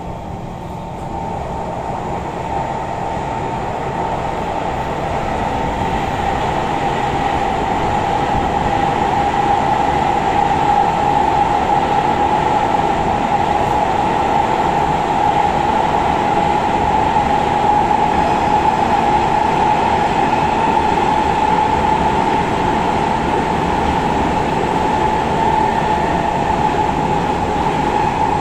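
Kawasaki Heavy Industries C151 metro train running at speed, heard inside a motor car: a strong steady traction-motor whine over the rumble of wheels on rail. It grows louder over the first several seconds and then holds steady.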